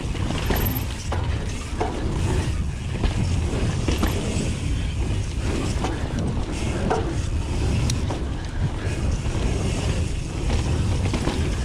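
Mountain bike ridden fast down a dry dirt trail: steady wind rumble on the microphone and tyre noise, with frequent clicks, knocks and rattles from the bike throughout.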